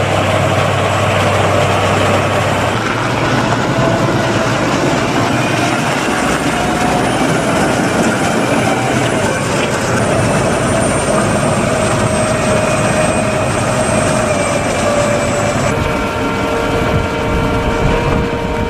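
Diesel engines of a wheel loader and a large tractor pulling a forage wagon, working over a maize silage clamp; a steady mechanical running sound with a thin high whine through the middle, changing abruptly as one machine gives way to the next.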